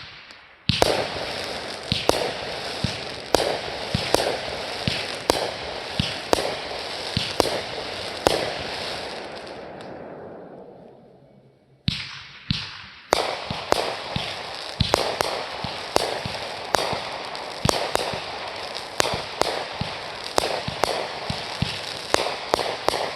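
Fireworks going off: a quick run of sharp bangs over a continuous crackling hiss that dies away about ten seconds in, then a second volley starting about two seconds later.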